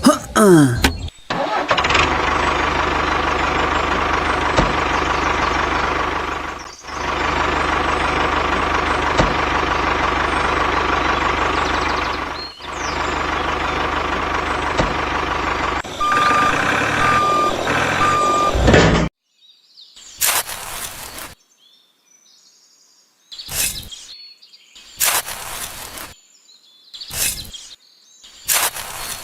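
A vehicle engine running steadily, briefly dipping twice. Near the end it gives way to three short, evenly spaced beeps, like a reversing alarm, followed by scattered short noises.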